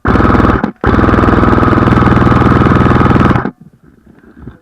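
Airsoft rifle firing on full auto, close by: a short burst, then a long burst of rapid, evenly spaced shots that stops abruptly about three and a half seconds in.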